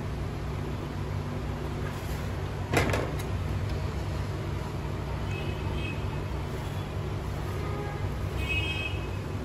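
A steady low rumble with one sharp clatter about three seconds in, and faint short high tones near the middle and again near the end.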